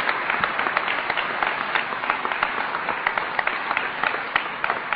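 An audience applauding, many hands clapping together, the applause slowly thinning and getting quieter toward the end.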